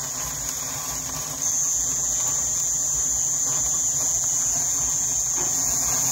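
An insect calling with a high, steady, unbroken trill, which grows much louder about a second and a half in.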